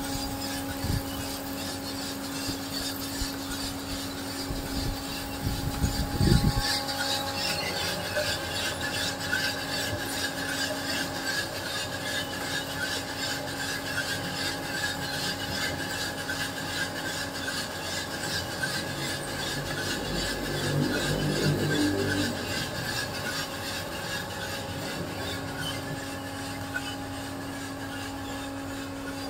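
A machine motor hums steadily at several fixed pitches, with a steady hiss over it. There are a few knocks and thumps in the first six seconds and a brief low rumble about two-thirds of the way in.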